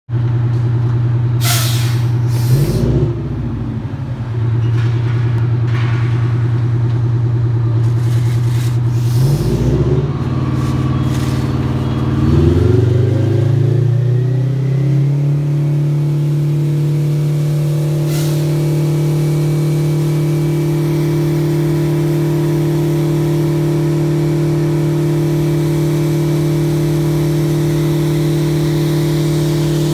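Airport fire truck's engine running, revving up in steps over the first fifteen seconds and then holding at a higher steady speed while the roof turret sprays water. Short air hisses come several times in the first ten seconds.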